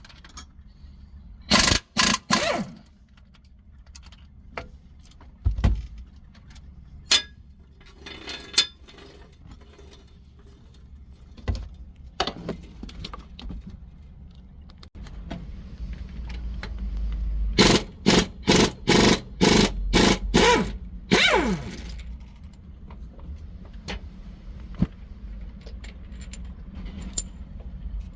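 A 1/2-inch stubby impact wrench run in short bursts: three quick bursts near the start, then a run of about eight in the second half, the last one ending in the motor winding down with a falling pitch. Light clicks and knocks from handling the tool and sockets come between the bursts.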